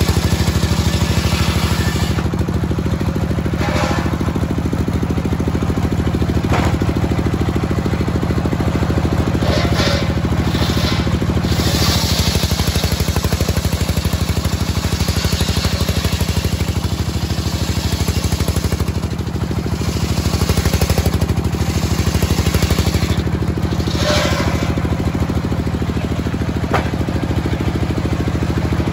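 A large homemade circular sawmill running with a steady mechanical drone while its big blade rips lengthwise through a teak log. The cutting noise rises and falls as the log is pushed through, and there are a few sharp knocks.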